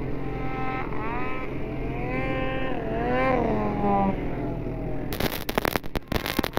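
Snowmobile engines running and revving, their pitch gliding up and down. One sled passes close, rising and then falling in pitch about three seconds in. About five seconds in, a harsh crackling rush of noise suddenly takes over.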